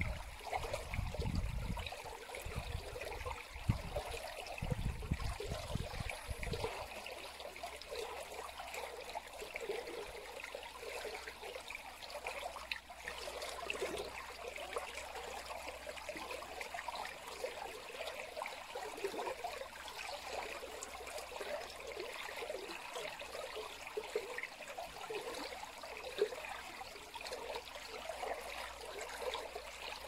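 Shallow stream water running over a rock ledge, a steady trickling babble. Low rumbles sit under it for the first seven seconds or so.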